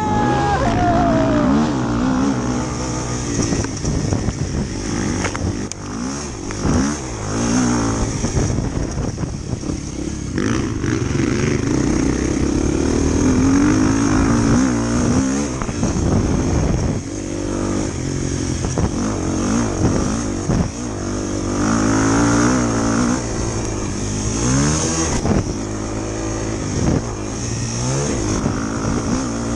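A motorcycle engine running on the move, its pitch rising and falling as the throttle changes, with steady wind hiss and a rise in revs a little before the end.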